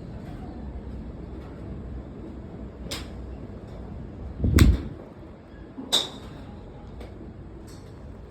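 Golf clubs striking balls at a driving range: a handful of sharp clicks a second or so apart. The loudest comes about halfway, with a brief low rush just before it.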